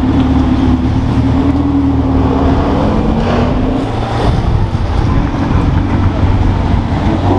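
Ferrari 488 Pista's twin-turbo V8 running at low revs as the car pulls slowly away, a steady low engine note over a rumble.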